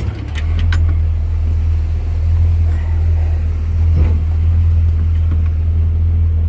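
A 1957 Chevrolet convertible's engine and exhaust giving a steady low drone while the car cruises, its exhaust manifold bolts freshly tightened to seal a leak. A few faint clicks come in the first second.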